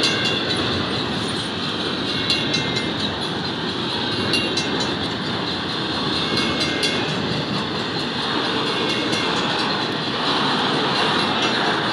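Intermodal freight cars rolling past close by: double-stack container well cars and trailer-carrying flatcars. Steel wheels make a steady rumble on the rail, with scattered clicks and a few brief high-pitched squeals.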